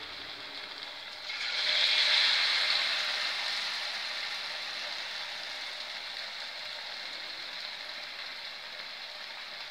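Battered chapati pieces deep-frying in hot oil in a steel pan, sizzling steadily. The sizzle swells suddenly about a second in, then slowly eases.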